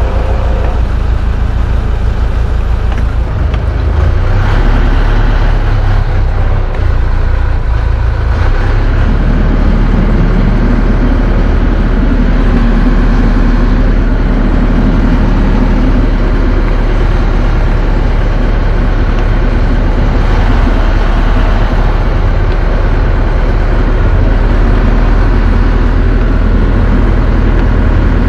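Towboat's engine running steadily under load while pulling a large boat on a tow line. It grows louder about four seconds in and again near nine seconds, then holds steady.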